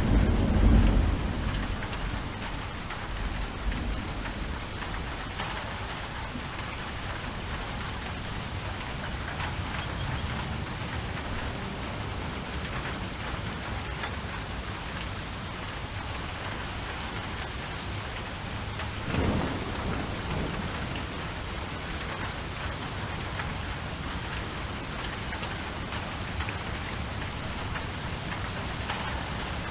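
Steady rain falling, with a low thunder rumble dying away in the first two seconds and a shorter, softer rumble about two-thirds of the way through.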